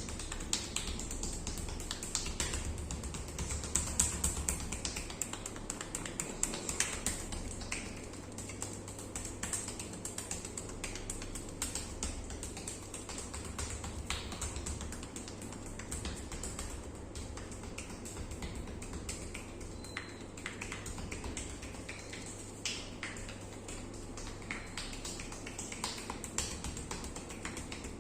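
Background music with many light, irregular taps and slaps of hands on skin from a massage.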